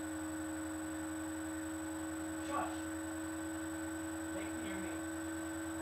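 Steady electrical hum of a running computer, several fixed tones held without change. A brief faint voice-like sound comes about two and a half seconds in.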